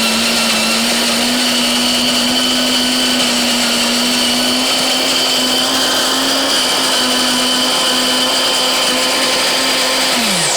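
Cuisinart DBM-8 flat burr coffee grinder running steadily, grinding coffee beans on its finest setting for espresso, with a steady motor hum. Near the end the motor winds down, its pitch dropping, and stops.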